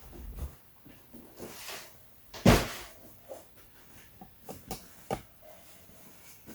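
Handling noises as a raw turkey is dried with paper towels in a pan: soft rustling and patting, one sharp knock about two and a half seconds in, and a few lighter clicks later.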